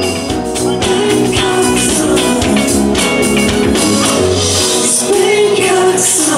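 Live pop-rock band playing with a man singing into a microphone.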